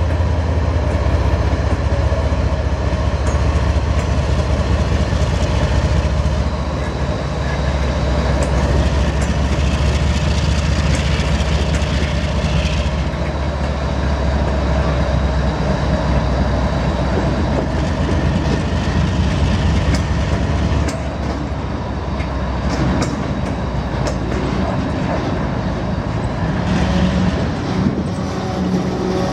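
GE ES44AC diesel locomotive running past slowly, its deep engine rumble dropping away after about six seconds, then a string of freight cars rolling by with steady wheel noise and clicks over the rail joints.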